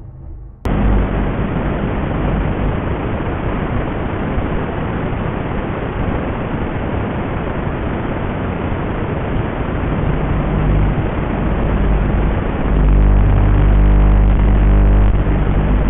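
Loud, steady rushing hiss on the analog FPV DVR recording of a quadcopter in flight. Near the end it grows louder and electronic music comes in under it.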